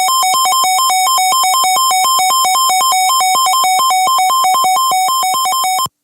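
Electronic two-tone emergency alert signal, alternating rapidly between a lower and a higher pitch several times a second, sounding ahead of a new severe thunderstorm warning broadcast. It cuts off abruptly near the end.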